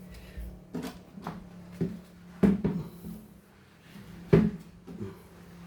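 A series of about six knocks and clicks from hard objects being handled and set down, the loudest about two and a half seconds in and again near four and a half seconds, over a steady low hum.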